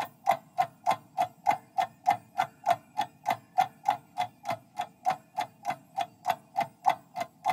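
Clock-ticking sound effect of a quiz countdown timer: a steady, even tick about three times a second.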